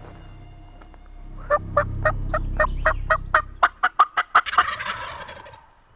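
Wild turkey gobblers gobbling: a fast rattling run of notes, about four or five a second, starting about a second and a half in and lasting about three seconds before trailing off.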